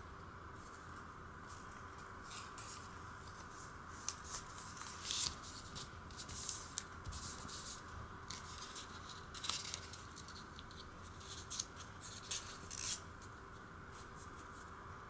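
Origami paper being folded and creased by hand: scattered crisp paper rustles and crinkles, thickest through the middle, over a steady faint hiss.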